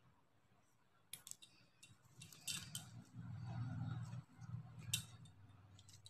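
Beads clicking against each other as a beaded piece is handled, a few sharp clicks over a low rumble of handling noise from about two to five seconds in.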